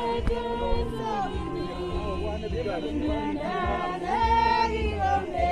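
Several voices singing together, choir-style, over instrumental music with a low bass.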